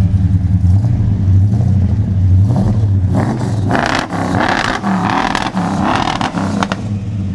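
Dodge Charger's engine idling with a deep, uneven rumble. From about three seconds in, a harsher hissing noise rides over it until near the end.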